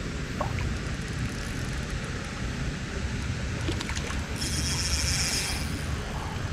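Steady low outdoor rumble like wind on the microphone, with a few faint clicks and a brief high buzzing a little past four seconds in.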